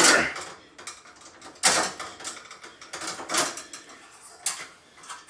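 Plastic packaging crinkling and rustling in bursts as hands work a small package open.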